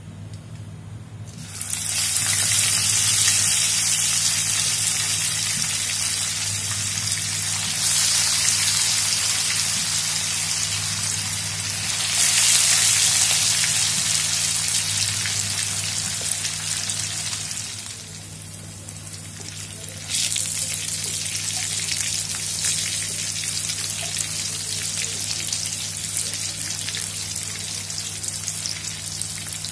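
Slices of steamed tofu-and-chicken nugget sizzling as they deep-fry in hot oil in a wok. The sizzle starts suddenly about a second and a half in, swells louder twice, eases off around eighteen seconds, and jumps back up about twenty seconds in. A low steady hum runs underneath.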